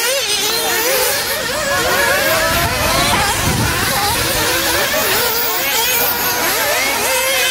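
Several nitro RC cars' small glow-fuel two-stroke engines running at once, their high-pitched whines rising and falling in pitch as they accelerate and brake around the track.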